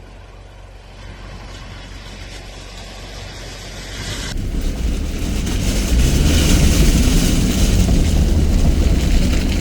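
Ute engine running low, then revving hard from about four seconds in, with a loud rushing noise over it.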